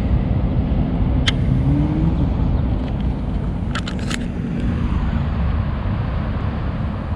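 Steady low rumble of a passing motor vehicle, its engine note rising about two seconds in, with a few brief sharp clicks.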